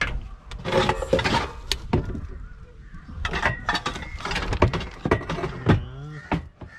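Cooking pots and utensils being handled, with a run of sharp clinks and knocks.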